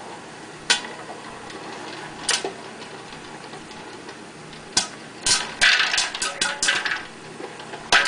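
Popcorn kernels popping inside an electric popcorn popper's clear plastic dome: a few single pops a second or two apart, then a quick run of many pops about five seconds in.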